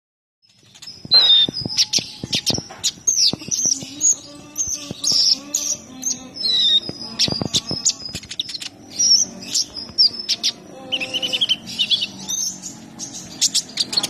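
Caged male Van Hasselt's sunbird (purple-throated sunbird) singing a rapid, high twittering song of quick glides, broken by sharp chips.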